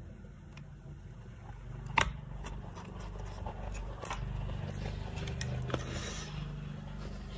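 Graphics card cooler being fitted back onto the card: a few sharp clicks and light knocks of parts being handled, the loudest about two seconds in, over a low steady hum.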